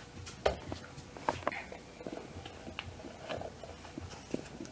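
Faint, irregular light clicks and taps of handling noise, several a second, as the camera and nearby objects are moved about in a small room.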